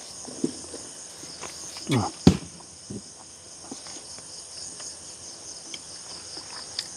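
Steady high-pitched chorus of night insects chirring. A few short knocks come over it, the loudest about two seconds in.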